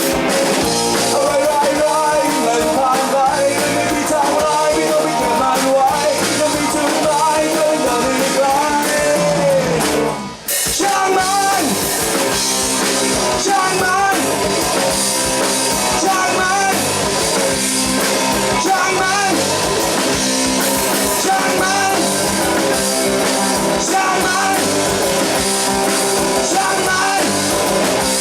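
Rock band playing live: electric guitar, bass and drum kit, with a brief break about ten seconds in before the band comes back in.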